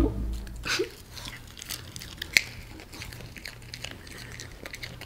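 Small dogs chewing raw broccoli: a run of soft, irregular crunches and clicks, with one sharper click about two and a half seconds in. The end of a plucked-string music cue fades out at the very start.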